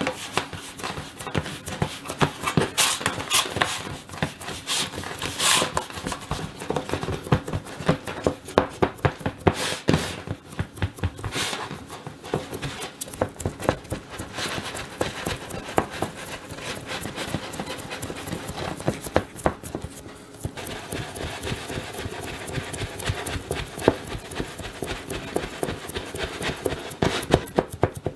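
Fingers pressing and pinching tart dough into a fluted metal tart tin, heard close up: a busy run of many short soft taps and squishes.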